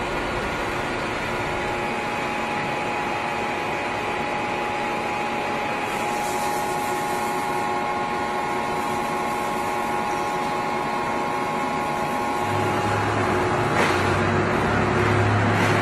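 Heavy-duty lathe running, a steady mechanical hum with several steady whining tones. About 12 s in a deeper hum joins and it grows a little louder, with a short clack about 14 s in.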